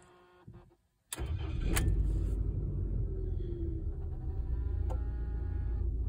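Rover 75 car engine starting about a second in, then running at a steady idle.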